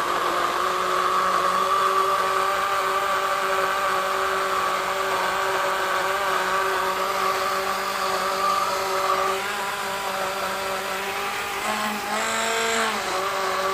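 Handheld electric blender motor running steadily while blending Oreo biscuits, milk and ice cream into a milkshake. Its pitch dips and recovers briefly about twelve seconds in, then holds steady again.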